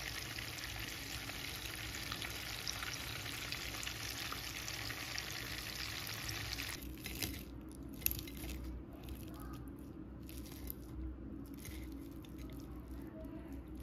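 Masala-coated fish pieces sizzling and crackling in shallow oil in a frying pan. About seven seconds in the sizzle stops abruptly, and a few light clicks and scrapes of a fork on a plate follow.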